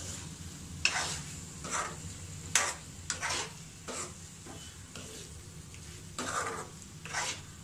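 Steel spoon stirring and scraping vegetable pieces and a thick ground spice paste around a nonstick kadai, in separate strokes roughly once a second with a short pause about halfway.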